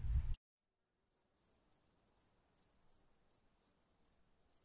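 A moment of outdoor background noise that cuts off abruptly about a third of a second in. Then near silence, with only a very faint high chirping about three times a second.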